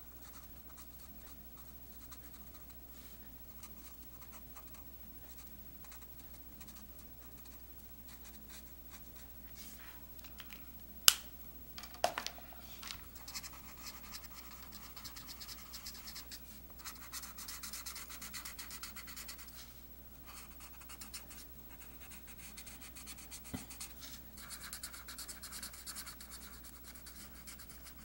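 Promarker alcohol marker nib scratching across paper in rapid short strokes as fur detail is drawn in, quiet for the first third. A sharp click about eleven seconds in is the loudest sound.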